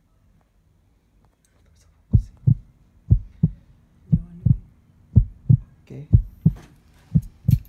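Heartbeat sound effect: paired low thumps, lub-dub, about one beat a second, starting about two seconds in.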